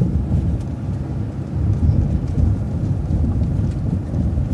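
Transit bus driving, a steady low engine and road rumble heard from inside the cabin, with a few faint light rattles.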